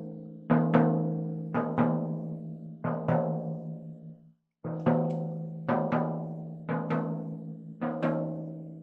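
16-inch Pearl floor tom with a freshly fitted and tuned Evans G2 coated head, struck with a drumstick about once or twice a second; each hit rings on with a clear low pitch. The ring is cut short once about four seconds in before the strikes resume.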